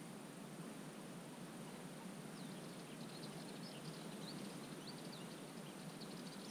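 A small bird twittering in a quick run of short, high chirps from about two seconds in, over a steady low background hiss and a faint, steady high-pitched tone.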